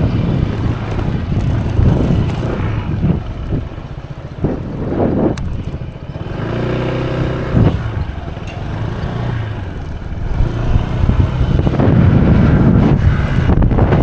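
Honda PCX scooter running along the road, engine hum mixed with wind noise on the rider's microphone. It eases off in the middle, where the engine's pitch comes through clearly for about a second, then grows louder again near the end.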